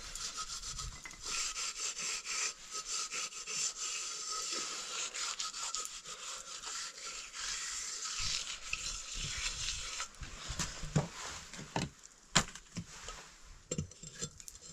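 Hand rubbing and scraping over the outside of an aluminium pressure-cooker pot in fast, scratchy strokes. Near the end come a few sharper knocks as the pot is set down on the stones of a wood fire.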